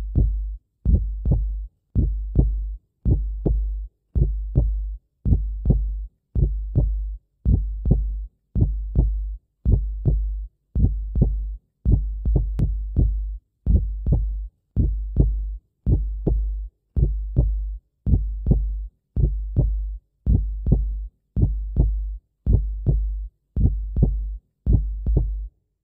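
Edited-in background music: a deep bass thump repeating evenly about once a second, like a heartbeat, each with a fading ring above it, stopping suddenly near the end.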